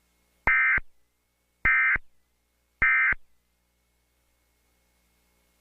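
Emergency Alert System end-of-message code: three short bursts of SAME digital data tones, a little over a second apart, marking the end of the alert.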